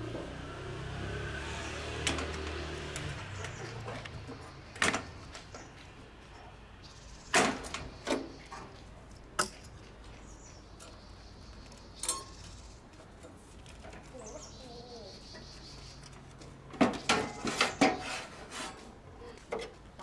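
Scattered sharp clicks and knocks from wire connectors and metal panel parts being handled inside an air conditioner's outdoor unit, with a quick run of several clicks near the end. A low rumble fades out over the first few seconds.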